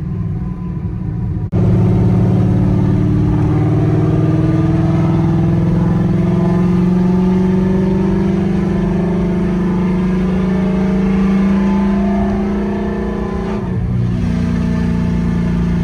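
2018 Ford Mustang GT's 5.0-litre V8 on open exhaust dumps straight off the headers, pulling under throttle. About a second and a half in it suddenly gets louder and its note climbs slowly for about twelve seconds, with a brief break near the end before it carries on steady.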